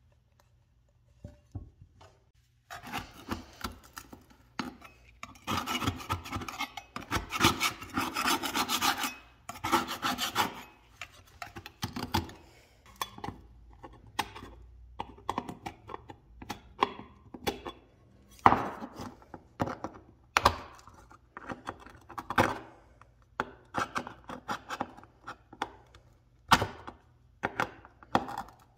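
Scraping and rubbing on a flashlight's hard casing for several seconds, followed by pliers crunching and snapping crusty black material off its edges, with a few sharp cracks standing out.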